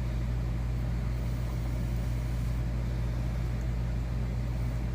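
Steady low mechanical hum with a faint hiss over it.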